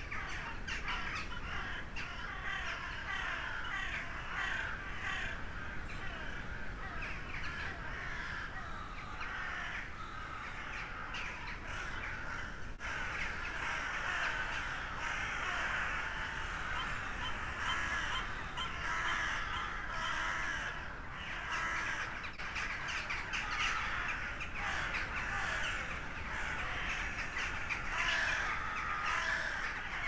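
A flock of crows cawing, many calls overlapping without a break and growing denser about halfway through.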